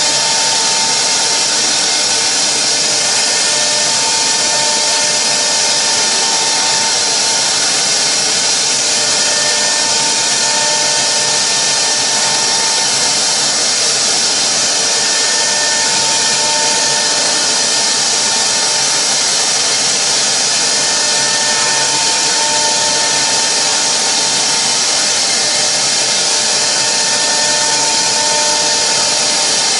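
CNC router spindle running at high speed, its bit machining a block of rigid polyurethane foam: a steady whine over a dense, even hiss.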